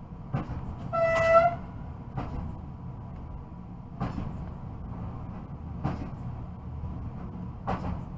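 Newag Impuls electric multiple unit running, heard from the driver's cab: a steady low rumble with a knock from the wheels over rail joints about every two seconds. One short horn toot sounds about a second in.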